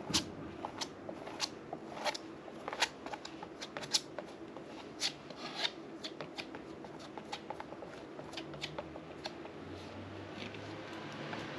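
Palette knife scraping and dabbing thick white paste across a canvas: irregular quick scrapes and light taps, dense at first and thinning out in the second half.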